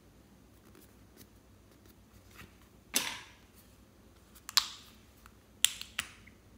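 Five sharp clicks and taps of hard objects being handled, each with a brief ringing tail, starting about three seconds in.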